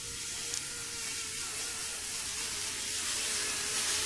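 Kato N-scale 500 series Shinkansen model train running at speed along the track, a steady hiss of wheels and motor with a faint steady hum under it.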